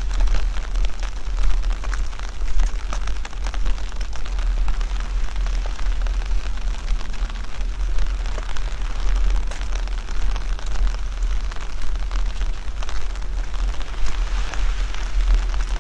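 Steady rain falling, a dense patter of drops with many small sharp taps, over a constant low rumble.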